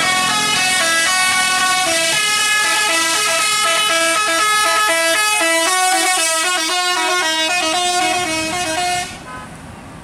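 Tour bus's telolet musical horn (Basuri-type multi-tone air horn) playing a quick melody of stepped notes, cutting off abruptly about nine seconds in.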